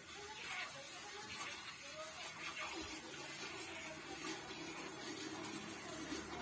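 Cow being hand-milked: thin jets of milk squirting into a steel pail, a repeated hissing swish.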